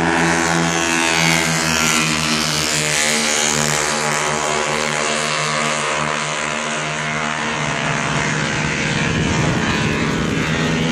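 Multirotor drone's propellers humming steadily in several close pitches, with a shift in pitch about seven and a half seconds in.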